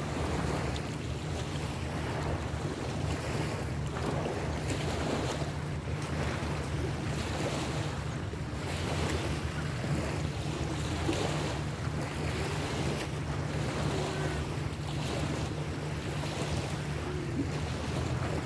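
Wind blowing on the microphone, rising and falling in gusts, over a steady low hum.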